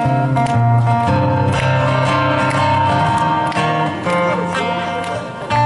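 Amplified steel-string acoustic guitar played solo fingerstyle: a picked melody of ringing notes over sustained bass notes.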